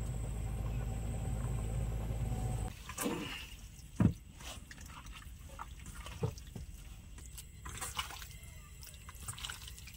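Raw chicken pieces being mixed by hand with spice paste in a steel bowl: wet squelching and scraping, with a sharp knock about four seconds in. A steady low rumble fills the first three seconds and cuts off abruptly.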